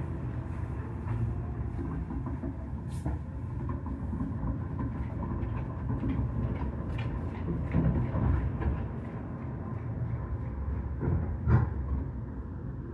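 Fireworks heard from afar: a continuous low rumble of bursts with scattered small crackling pops, and one sharper bang near the end.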